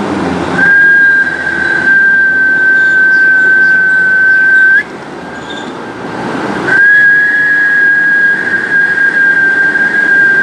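A person whistling one long, steady, high note, a short pause, then a second long note at the same pitch, each ending with a slight upward flick.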